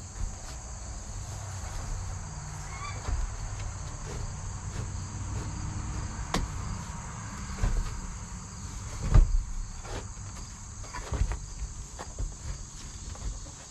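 Insects chirring steadily in a high, even band, with a few sharp knocks scattered through, the loudest about nine seconds in.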